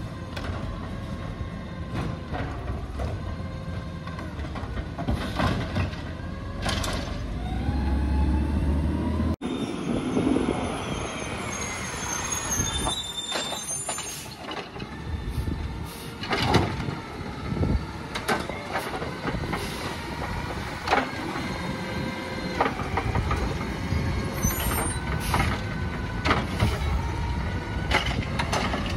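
Automated side-loader garbage truck at work: the diesel engine revs up and down to drive the hydraulic arm as it grabs, lifts and dumps wheeled trash carts, with repeated bangs as the carts are shaken out over the hopper and set back down, and the hiss of air brakes.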